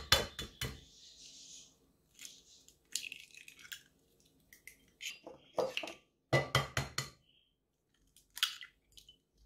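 Eggs being cracked against a glass bowl: groups of sharp taps and crackling shell as each egg is broken open, several times over with short pauses between.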